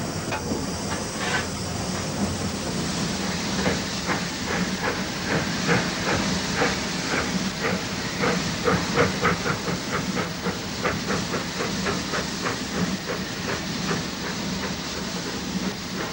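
Restored steam locomotive Port Line working: a steady hiss of steam, with a rhythmic clatter of beats, about two or three a second, that builds from a few seconds in and fades away near the end.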